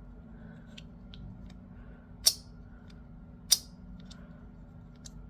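Magnetic joystick fidget's knob clicking on its base as it is pushed around in the loud way. There are a few faint clicks and two sharp loud ones, a little over a second apart, near the middle.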